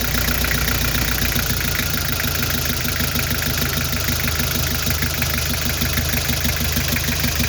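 Nissan TD27 four-cylinder diesel engine idling with the injector pipe to cylinder number four cracked loose, cutting that cylinder out; the engine note changes about a second and a half in. This cylinder-by-cylinder cut-out test pins the misfire and exhaust smoke on cylinder four.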